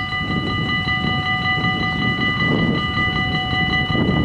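Warning bells of a Dutch AHOB automatic level crossing ringing in a fast, even rhythm as the crossing closes and the barriers lower. A low rumble grows louder underneath.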